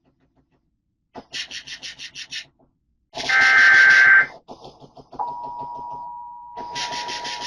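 Emergency Alert System test signals. A loud burst of SAME digital header data with two alternating high tones comes a little past three seconds in. From about five seconds the steady two-tone attention signal sounds and runs on. Rapid pulsing bursts come before the data burst and again over the tone near the end.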